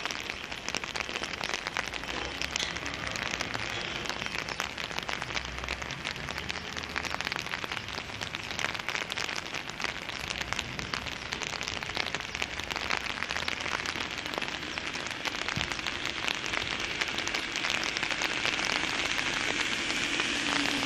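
Steady rain falling on wet pavement: a dense crackle of many small drops that grows a little louder near the end.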